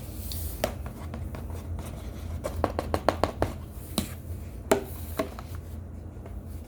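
Hard baked cornstarch chunks cracking and crunching: a quick run of sharp cracks about two and a half seconds in, then a few single cracks, over a steady low hum.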